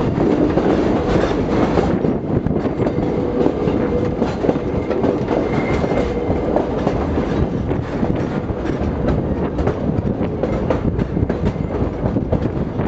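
Passenger train rolling along the track, heard from an open-air car: a steady loud rumble of the wheels on the rails with rapid clicking throughout.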